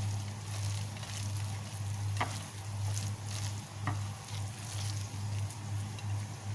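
A spatula stirring and scraping a thick mix of shredded chicken and yogurt around a glass bowl, with a couple of sharper taps against the glass. A steady low hum runs underneath.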